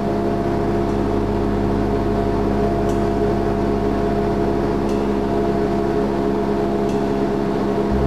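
Cessna 172R's four-cylinder Lycoming engine and propeller droning steadily in cruise flight, heard from inside the cabin.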